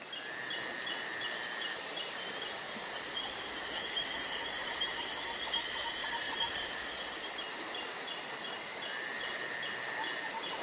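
Steady outdoor nature ambience: insects chirping in an even rhythm of about three chirps a second over a constant hiss, with a few quick high bird-like calls about two seconds in.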